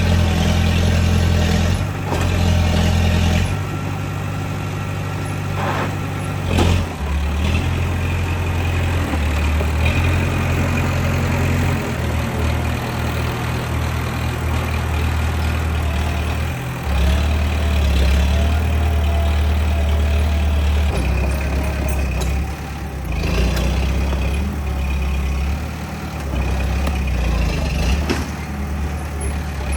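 Bulldozer's diesel engine running steadily, its pitch and load shifting in steps, with a sharp knock about six and a half seconds in.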